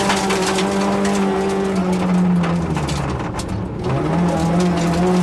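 Yugo rally car's four-cylinder engine heard from inside the cabin, running hard at steady high revs. The revs drop away for about a second around the three-second mark, then pick up again. Gravel crackles under the car throughout.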